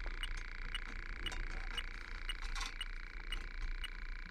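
Electronic refrigerant leak detector ticking steadily about twice a second over the hum of its sampling pump, signalling refrigerant at the probe tip: a small leak in the heat pump's coil.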